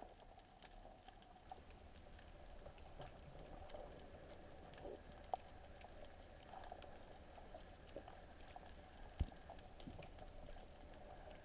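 Underwater ambience picked up by a speargun-mounted camera: faint scattered crackling and ticking over a faint steady hum, with two brief louder knocks, one a little before halfway and another about four seconds later.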